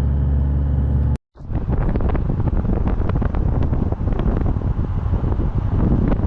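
Low, steady drone of a Toyota Hilux driving, heard from inside the cab, which cuts off about a second in; then a rough, crackling rush of wind buffeting the microphone outdoors.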